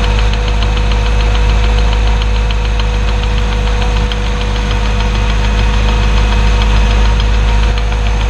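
A motor or engine running steadily, with a deep hum, a constant tone and a fast, even ticking over it.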